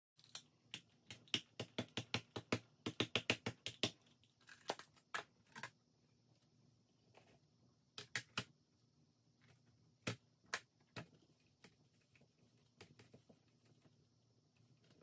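Small ink pad patted quickly over and over onto cling stamps on a clear acrylic stamping plate: a run of light taps, about five a second, for the first four seconds. After that come a few scattered clicks and knocks as the plate and paper are handled.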